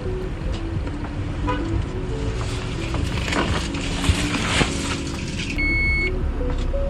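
Background music over the steady low rumble of a car on the road, with a brief high electronic beep near the end.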